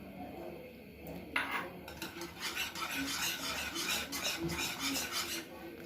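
A utensil stirring and scraping through a thick mango syrup in a cooking pot, in quick repeated strokes that start about a second and a half in.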